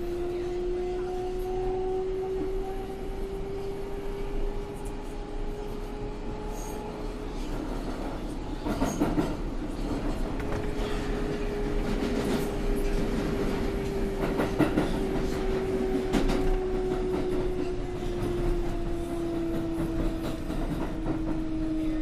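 R142A subway car with its air-conditioning off, its traction motors giving a steady whine under a rolling rumble. The whine rises slightly, drops out for a few seconds midway, then returns and sinks in pitch near the end. The wheels clatter over rail joints in the middle of the stretch.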